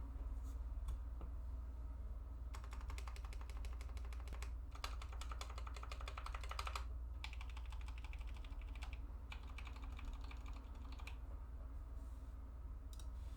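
ID80 mechanical keyboard with lubed and filmed Outemu Sky v2.2 tactile switches being typed on: a few single key presses, then four fast runs of keystrokes about two seconds each with short pauses between, and one last key press near the end. A steady low hum sits underneath.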